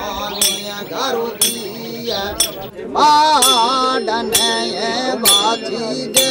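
A voice singing a wavering melody, joined about three seconds in by a louder voice, with a sharp metallic clink struck about once a second to keep time.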